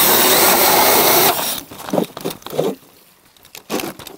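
Cordless drill spinning an ice auger through lake ice, running steadily for about a second and then stopping abruptly, followed by a few short scraping knocks as the auger is worked in the hole.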